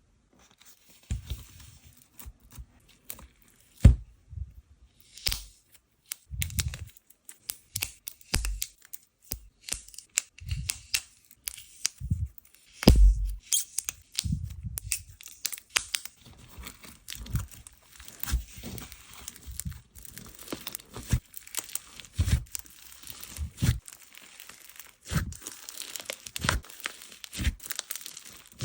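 Slime being squished, stretched and poked by hand: a dense, irregular run of sticky crackles and popping clicks, with soft low squelching thumps among them.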